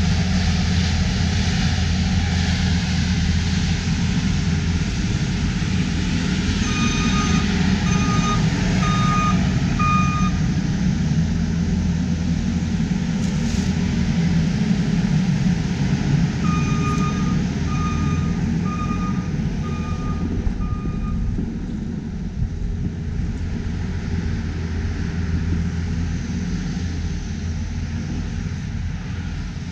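New Holland L228 skid steer loader's diesel engine running steadily, with its backup alarm beeping in two runs of several beeps each, about three quarters of a second apart, as it reverses.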